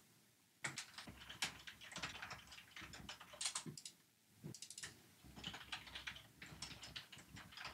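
Faint computer keyboard typing: irregular runs of keystrokes broken by short pauses.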